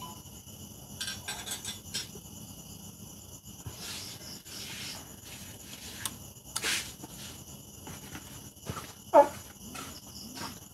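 Crickets chirping steadily in the background, with light metallic clicks of small parts (washers, a C-clip) being handled while the kickstart gear of a Lifan 160cc engine is assembled. A brief sharp pitched sound stands out about nine seconds in.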